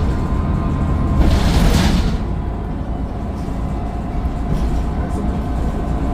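Mercedes-Benz Citaro O530 bus's Daimler OM906 6.4-litre diesel engine running under way, a steady low rumble with a faint thin whine above it. A short burst of hiss about a second in.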